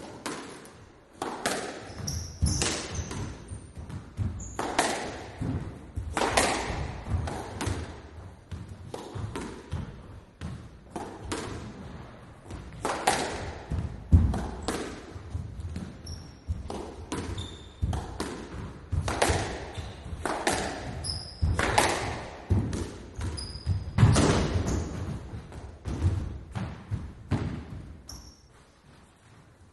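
Squash game: the ball is struck by rackets and smacks off the court walls in an irregular run of sharp hits. Short, high squeaks are scattered among the hits, and the play dies away near the end.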